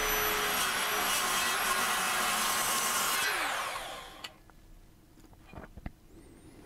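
Mitre saw with a carbide-tipped wood blade running and cutting through 10 mm aluminium plate, a steady noise with a high whine. About three seconds in it is switched off and spins down, followed by a few faint clicks as the cut piece is handled.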